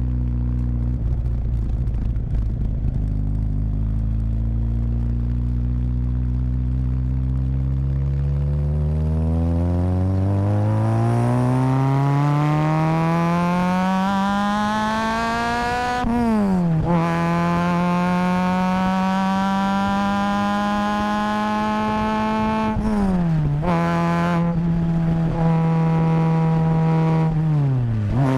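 Car engine and PYG exhaust pulling through the gears: the note sits low and steady for several seconds, then climbs steadily for about eight seconds, drops sharply at a gear change, holds steady, and drops again at further gear changes about seven seconds later and near the end.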